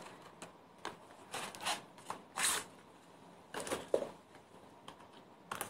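Small cardboard lipstick box being handled and opened: several short papery rustles and scrapes, the loudest about two and a half seconds in.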